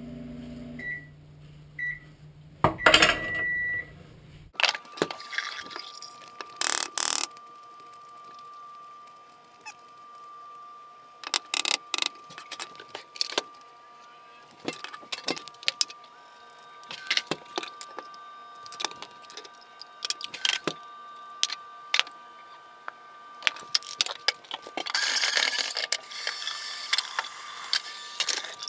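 Microwave oven beeping a few short times as its one-minute cycle ends, then the clicks and knocks of a knife on a wooden cutting board and food and utensils going into a steel bowl. Near the end the kitchen tap runs briefly.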